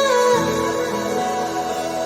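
Soft background music: sustained, slow-moving melody notes over a held bass, with a falling phrase near the start.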